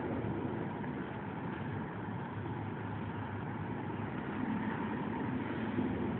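Steady low rumbling background noise with a faint constant hum, no distinct events.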